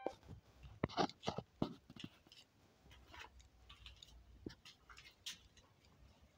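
Faint, scattered light clicks and taps, a small cluster about a second in and a few sparse ones after, with no steady sound behind them.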